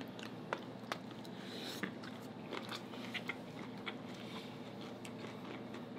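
Close-miked chewing and crunching of food, including crisp raw cucumber slices, heard as faint scattered sharp clicks and crunches over a low steady hum.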